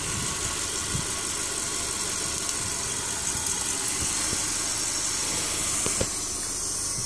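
Car engine idling steadily, with a couple of light clicks as the jumper cable clamps are handled.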